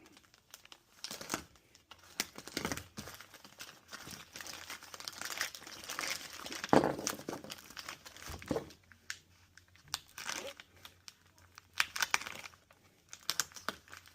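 Shipping packaging being torn open and crumpled by hand: irregular rustling, crinkling and tearing with scattered sharp crackles, the loudest about seven seconds in.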